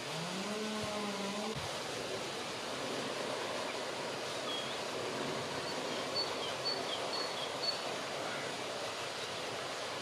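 Steady wind and water noise with short, high piping calls of wading birds, repeating about twice a second from about halfway through. A low, drawn-out call sounds in the first second and a half.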